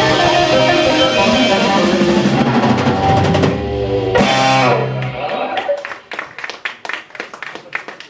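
Live rock and roll band of electric guitars, bass guitar and drum kit playing the closing bars of a song, which stops about five seconds in. Scattered clapping follows.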